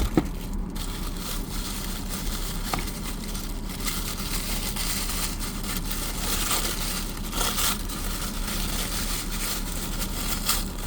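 Cardboard and plastic blind-box packaging being torn open and handled, with irregular crinkling and rustling, over a steady low hum.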